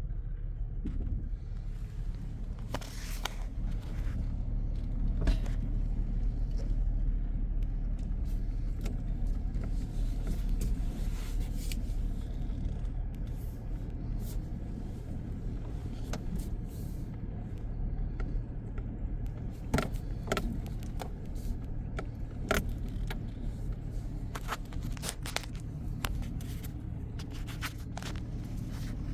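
Motor vehicle engine running with a steady low hum, with scattered clicks and rattles over it.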